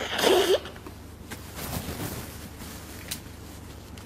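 A short breathy vocal sound from the preacher, about half a second long at the start, then a pause with only a low steady hum of the recording and a faint tick.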